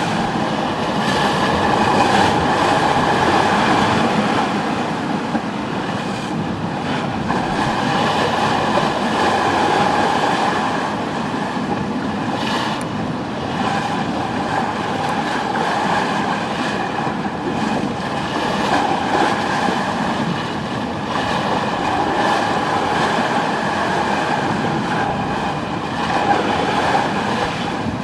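Steady rumbling drone aboard a two-masted schooner, with a steady hum over it and one brief click about halfway through.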